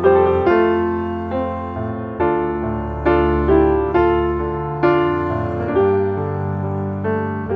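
Background piano music: a slow melody of single notes and chords, struck about once or twice a second, each ringing and fading.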